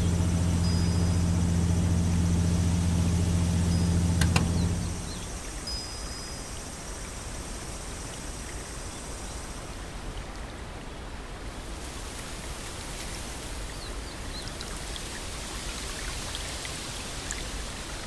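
Ambient sound-art soundscape: a steady low hum with thin high whining tones, which cuts off about five seconds in after a single click. Then a steady, even hiss with faint scattered crackles.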